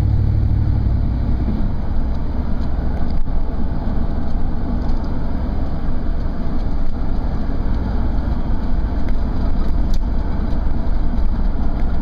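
Truck driving: engine drone and road noise, with the deep engine note easing off about a second and a half in.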